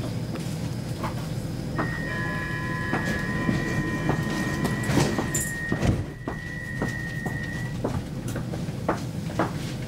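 A Stockholm Metro C20 carriage's sliding doors close with a heavy thump about six seconds in, under a steady high warning tone that sounds for about six seconds. The carriage's low hum runs underneath, with a few lighter knocks.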